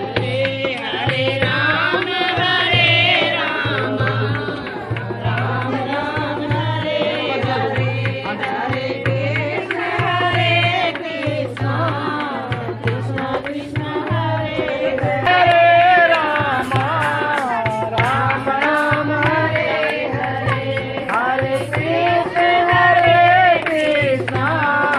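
Music: a sung Indian song over tabla-like percussion with a steady pulsing beat.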